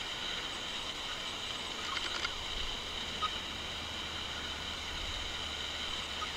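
Steady outdoor ambience dominated by a continuous high-pitched insect chorus, with a few faint clicks about two seconds in.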